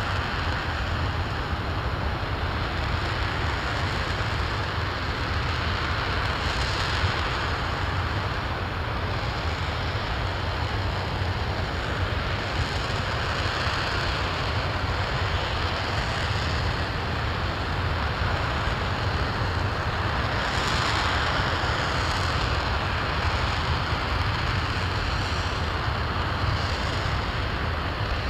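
RS-25 liquid-hydrogen/liquid-oxygen rocket engine firing steadily, well into a long hot-fire test: a constant, even rushing noise with a deep low rumble underneath.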